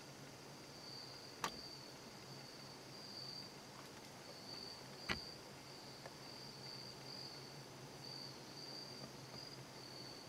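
Woodland insect chorus: a high, steady, pulsing trill, with two sharp clicks about one and a half and five seconds in.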